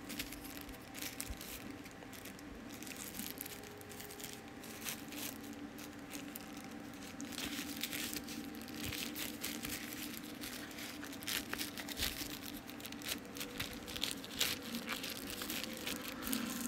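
Hands handling a plastic phone case and its packaging: scattered crinkling, rustling and small clicks and taps, over a faint steady low hum.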